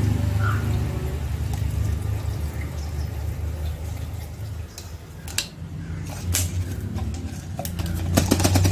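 Petrol being poured from a container into the fuel tank of a 1960 Royal Enfield Bullet, over a steady low hum. A few sharp clicks come around the middle, and a short clatter comes near the end.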